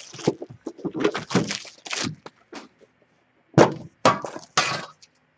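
Trading-card packaging being handled: a metal card tin and foil card packs crinkling and clinking in irregular bursts, with three sharper bursts in the second half.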